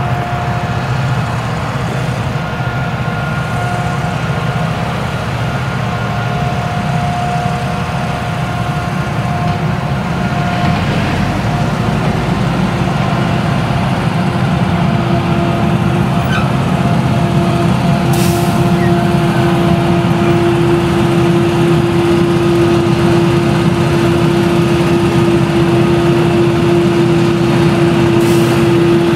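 Claas Jaguar 970 self-propelled forage harvester chopping sorghum under load, its MAN V8 engine droning steadily with a steady whine over it. The sound grows gradually louder as the machine comes closer, and the whine drops to a lower, stronger pitch about twelve seconds in.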